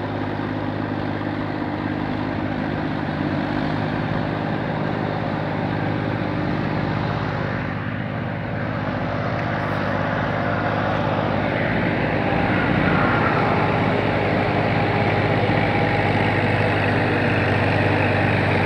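Tafe 45DI tractor's diesel engine running steadily. It grows louder about two-thirds of the way through, as if working harder.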